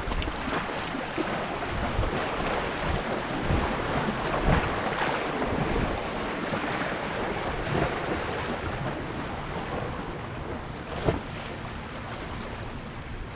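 Wind buffeting the microphone over a steady wash of waves, with one short knock about eleven seconds in.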